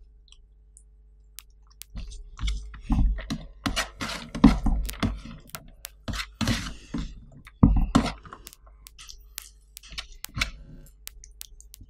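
Close-miked crunching of crispy fried food as it is crumbled by hand over rice and chewed: irregular sharp crunches that start about two seconds in and come every half second or so.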